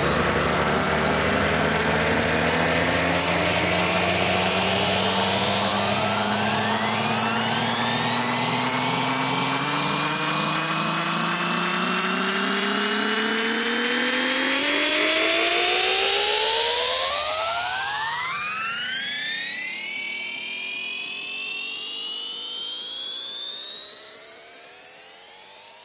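Electronic sound effect from a radio play: a dense cluster of tones over a low rumble, all sliding steadily upward in pitch like a long rising sweep. About two-thirds of the way through, the low rumble falls away and only the high rising tones remain.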